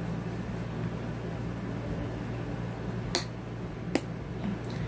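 Room air conditioner running with a steady hum, with two sharp clicks a little under a second apart near the end.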